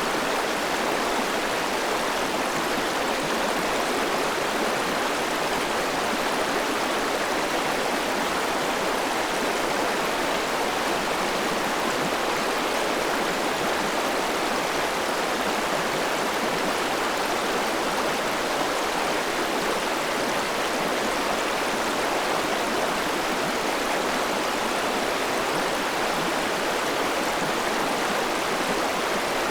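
River water flowing and rushing over stones, a steady, even wash of noise with no breaks or changes.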